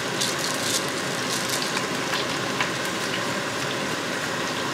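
Garlic frying in olive oil in a pan, sizzling as a steady hiss with a few faint crackles.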